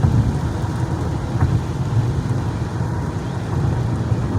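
Car driving on a rain-wet road, heard from inside the cabin: a steady low rumble of engine and tyre noise with a hiss over it.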